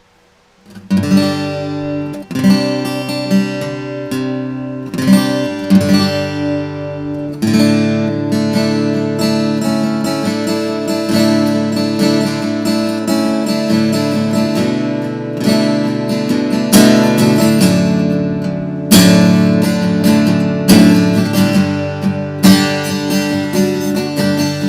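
Morris MG-1002 acoustic guitar being played: chords strummed and left ringing. It starts about a second in with separate struck chords, then turns to steadier strumming from about seven seconds in.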